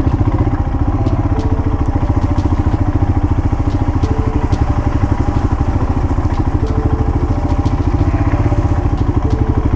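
Motorcycle engine running steadily at low speed, a fast even beat with no revving, while the bike rolls over a rutted mud track. A few faint clicks are heard over it.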